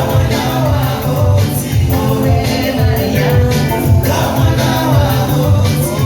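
Loud music with singing over a heavy, steady beat.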